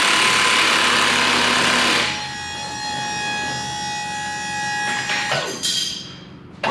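Electric hydraulic pump motor of a Thieman tuck-away liftgate running as the platform rises to bed height. A loud rushing noise covers the first two seconds, then a steadier motor whine runs until it stops about five seconds in.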